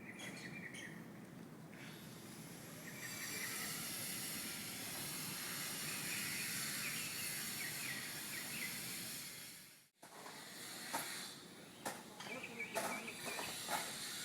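Outdoor ambience: a steady hiss with short bird chirps now and then. After a break about ten seconds in, there are scattered clicks and knocks.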